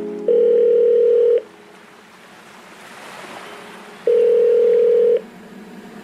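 Two long, steady electronic beeps of about a second each, one near the start and one about four seconds in, with a soft hiss swelling between them.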